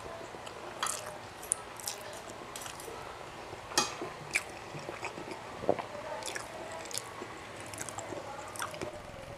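Soft chewing and wet mouth sounds of a person eating grilled chicken and rice by hand, with a handful of short sharp smacks spread through it.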